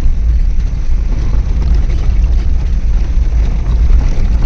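A car on the move: a steady, deep rumble of engine and road noise.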